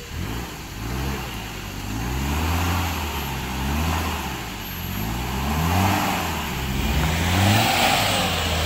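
Off-road pickup truck's engine revving in repeated surges, rising and falling several times, as the truck claws up a steep, muddy slope on a tow strap.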